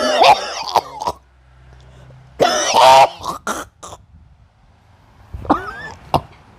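A person coughing and hawking forcefully in a few loud, rough fits, the loudest about two and a half seconds in and a shorter one near the end.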